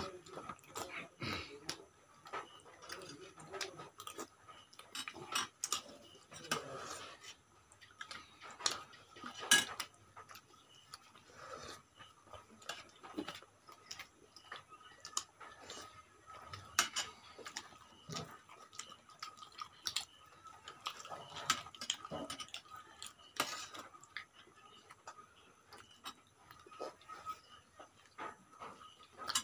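People eating by hand: scattered smacks and clicks of chewing and lips, roti being torn, and occasional clinks of a steel spoon against a steel bowl of curry, over a faint steady tone.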